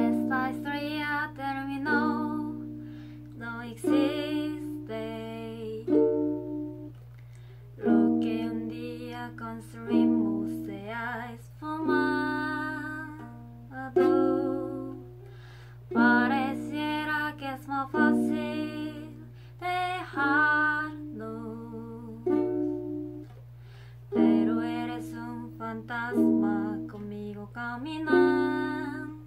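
A woman singing a Spanish-language song to her own ukulele accompaniment, in phrases of about two seconds with short gaps between.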